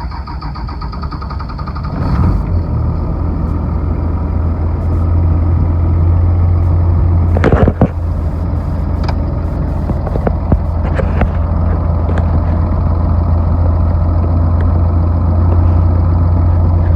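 12-valve Cummins inline-six diesel running steadily just after a cold-morning start, a deep even drone that gets louder about two seconds in. A brief louder noise breaks in midway.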